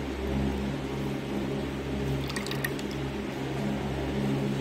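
Soft wet squishing and water sounds of soaked soya chunks being lifted by hand out of their water in a steel bowl, over a steady low hum. A few light clicks come about two and a half seconds in.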